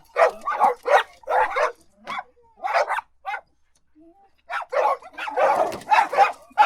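Dog barking: a run of short, separate barks, a pause of about a second, then faster barks that run together near the end.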